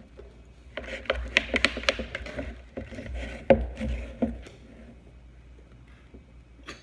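Spoon stirring a thick slime mixture of glue, shaving cream and detergent in a bowl, with rapid clicks and taps of the spoon against the bowl. The stirring runs for about three seconds, then stops.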